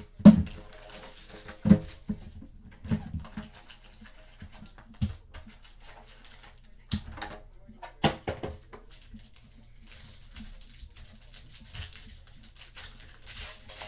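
Trading cards and packs handled on a table: irregular knocks and taps, the sharpest about a quarter second in and again near two seconds, with stretches of rustling.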